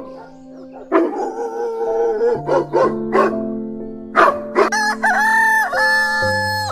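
A rooster crowing near the end: one long held crow over background music. Earlier, a wavering animal call about a second in and several short, sharp calls.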